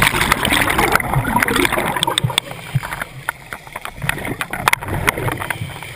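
Scuba exhalation bubbles rushing and crackling past an underwater camera housing: a long burst over the first two seconds or so, then weaker bursts with scattered clicks.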